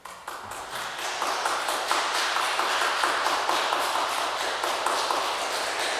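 Audience applauding: many hands clapping start suddenly after silence, build up over about a second, then hold steady.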